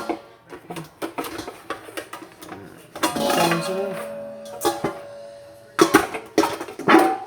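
Dishes clattering as a bowl is handled: scattered knocks and clinks, a ringing tone held for a couple of seconds midway, and several loud knocks near the end.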